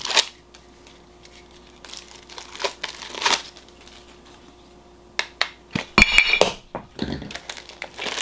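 Hands unwrapping and opening a Funko Soda collectible can: plastic wrapping crinkling, with scattered clicks and a louder clattering burst about six seconds in.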